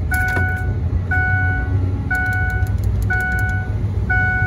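Ford pickup's engine idling just after a very cold start, heard from inside the cab, while the dash warning chime sounds about once a second.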